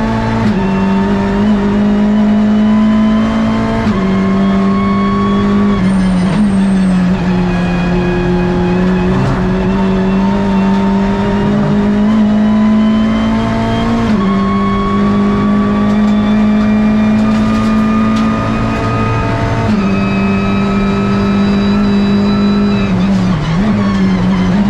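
Hyundai i30 N TCR race car's turbocharged 2.0-litre four-cylinder engine under racing load, heard from inside the cockpit. The engine note climbs slowly and steps in pitch at several gear changes.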